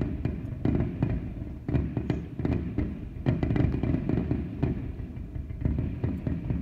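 Aerial firework shells bursting in quick succession during a fireworks finale: many sharp bangs over a constant low rumble.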